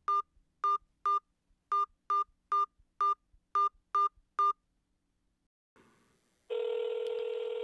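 Phone keypad tones as a ten-digit number is dialled: ten short two-note beeps at an uneven tapping pace. About six and a half seconds in comes a steady ringing tone on the line as the call goes through.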